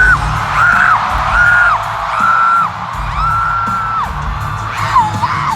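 Live pop concert music from the PA, heavy in the bass. Over it a voice holds a string of short, high notes, each about half a second, sliding up at the start and dropping off at the end.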